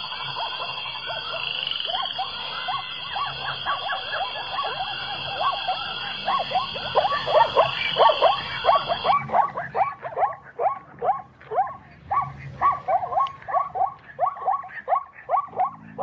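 Plains zebra calling: a long run of short, barking yelps, about two to three a second, getting louder about halfway through. A steady high-pitched drone sounds alongside at first and stops about nine seconds in.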